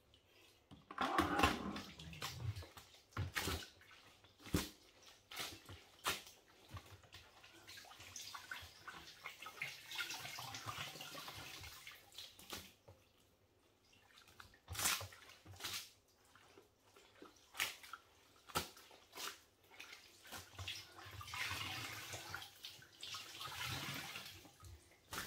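Wet towels being wrung out over a plastic mop bucket, water streaming and dripping into it. Sharp splats of wet cloth and knocks against the bucket come throughout, with longer runs of pouring water twice.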